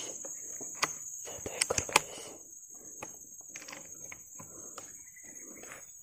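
Insects buzzing steadily at a high pitch, with a few sharp clicks about one and two seconds in.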